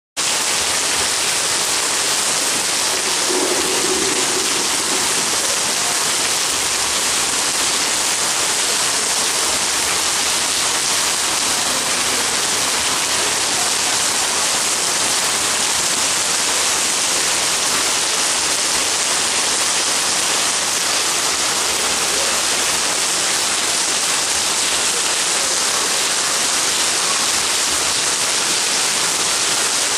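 Heavy downpour of rain: a steady, even hiss of rain pouring down that holds at the same loudness without a let-up.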